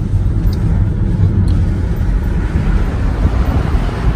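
Road noise heard from inside a moving car: a steady low rumble of engine and tyres, with a hiss that grows louder in the second half.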